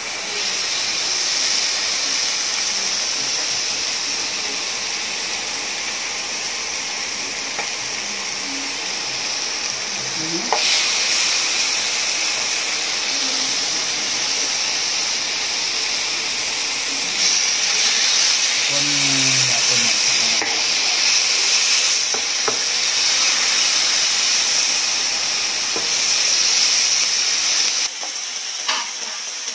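Marinated pork loin frying in olive oil and butter in a nonstick pan with a loud, steady sizzle. A few short knocks, likely the wooden spatula against the pan, come through, and the sizzle drops off abruptly near the end.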